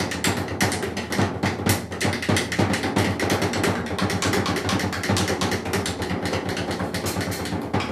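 Free-improvised percussion music: a dense, irregular stream of quick drum and percussion strikes, several a second, over a low pitched layer.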